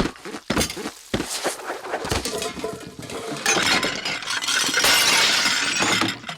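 Ceramic pottery smashing and shattering, with shards clattering: the Sound Ideas 'Pottery Drop Break' stock sound effect. Several sharp crashes come first, then a longer run of breaking and clattering from about halfway in until near the end.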